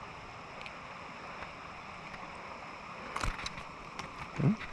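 Steady hiss of river water and open air, with a few sharp clicks from handling the hooked fish about three seconds in. Near the end a man gives a brief low hum that rises in pitch.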